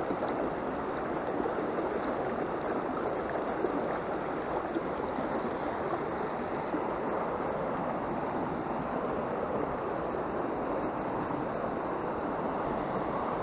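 Fast, rocky stream rushing over boulders: a steady, even rush of running water.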